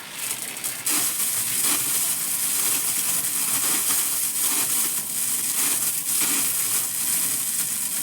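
Water gushing from a pipe and splashing down over a person bathing: a steady, loud hiss with a few irregular splashes, building up about half a second in.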